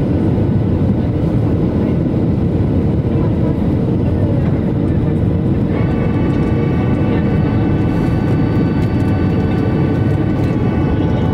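Airliner cabin noise heard from a window seat over the wing during the approach: a steady, loud low roar of the jet engines and airflow. About halfway through, a steady whine of several high tones joins in and holds.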